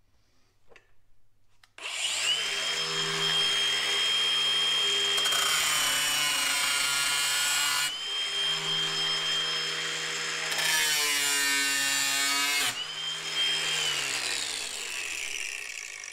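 Cordless angle grinder spinning up about two seconds in and cutting through metal at a car's fog-light mount, its whine dipping and wavering in pitch as the disc bites. Near the end the trigger is released and the grinder winds down with a falling whine.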